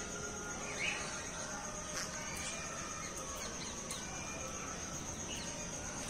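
Bird aviary ambience: scattered short chirps and calls of birds over a steady high-pitched buzz, with a few light clicks.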